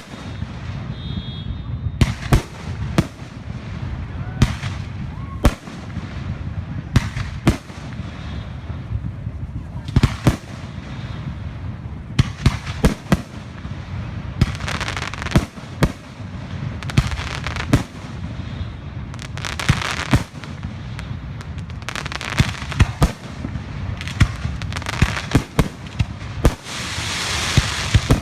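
Fireworks going off: a string of sharp bangs at irregular intervals, several in quick succession at times, with stretches of hissing crackle between them and a longer crackling burst near the end.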